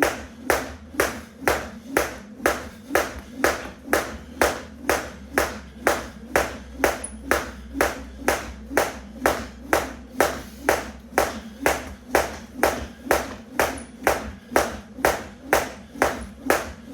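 A weighted 1 lb jump rope slapping the floor at each turn, in an even rhythm of about two and a half strikes a second.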